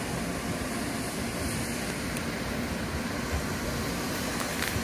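Steady low rumble with hiss, even throughout and with no distinct event.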